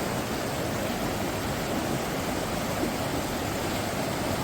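Steady rushing of a fast-flowing glacial river beneath a footbridge, a constant even roar of water with no breaks.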